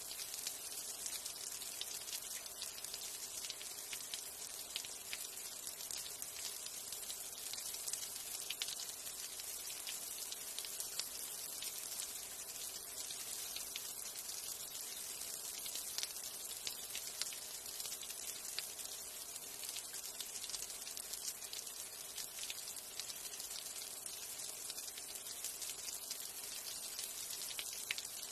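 Light rain falling: a steady high hiss scattered with many small drop ticks.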